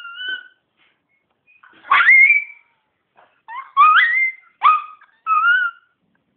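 Miniature pinscher dog 'singing': a run of high howls that rise and waver in pitch, one longer howl about two seconds in followed by several shorter ones.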